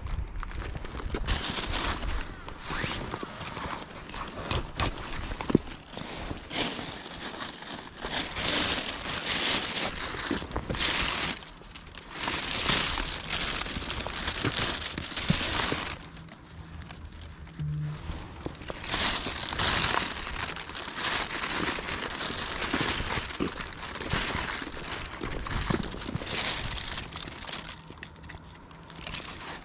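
A thin plastic garbage bag rustles and crinkles as it is handled and opened. The sound comes in irregular bursts of a few seconds, with a quieter stretch past the middle.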